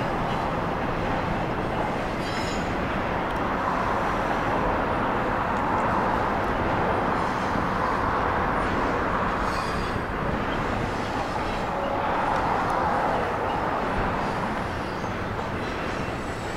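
Canadian Pacific double-stack container train's well cars rolling past over a bridge: a steady clatter of steel wheels on rail, swelling and easing every few seconds as cars go by, and dropping slightly near the end.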